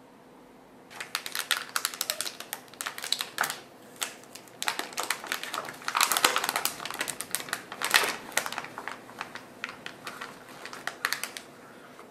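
Dense, irregular crinkling clicks, starting about a second in and stopping near the end, over a faint steady hum.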